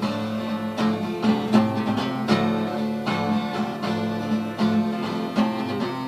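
Instrumental close of a song: acoustic guitar strummed in a steady rhythm, about one stroke every 0.7 seconds, over a held low note.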